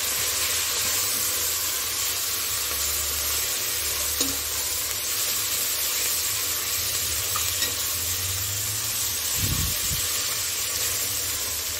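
Sliced onions, green chillies, mint and coriander sizzling in hot oil in a pressure cooker, stirred with a metal ladle. A steady frying hiss with an occasional light click of the ladle against the pot.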